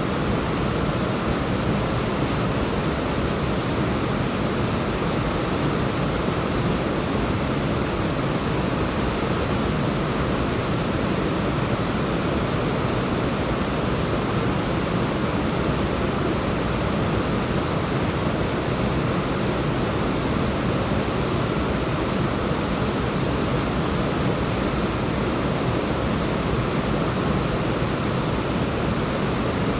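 Waterfall: water falling and running in a steady, unbroken rush.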